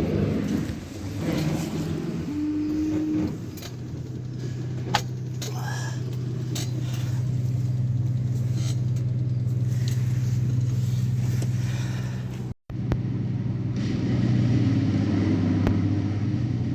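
Steady low hum of the Morris Minor's electric windscreen wiper motor running on test after its drive gear has been replaced.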